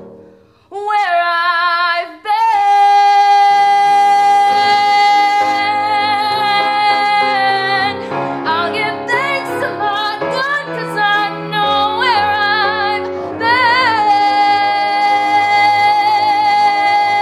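A young woman belting a solo musical-theatre song with wide vibrato, holding long high notes over instrumental accompaniment that comes in a few seconds in; the phrase ends on a long held note.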